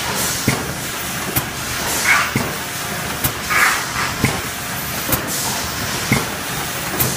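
Automatic cartoning machine for facial-mask pouches running steadily, a sharp click repeating a little under once a second over a constant mechanical noise, with two short hisses about two and three and a half seconds in.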